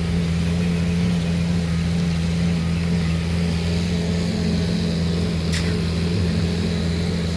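Concrete pump engine running at a steady speed, a constant low drone, with a brief click about five and a half seconds in.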